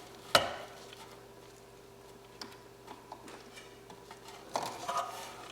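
Sharp click-knock of something hard being handled, then a few faint scattered clicks and a short spell of rustling handling noise near the end.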